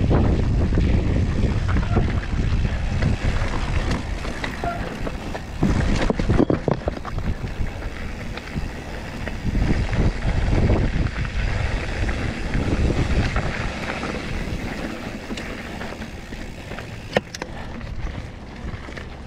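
Mountain bike riding down a rough trail: wind rushing over the GoPro's microphone, with tyre noise and rattles and knocks from the bike over rocks. It eases off gradually, and there is a sharp click near the end.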